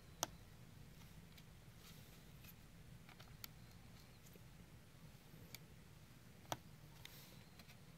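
Near silence broken by a few faint sharp clicks, the clearest just after the start and about six and a half seconds in: small antenna connectors being pressed onto a laptop's wireless card with a small screwdriver.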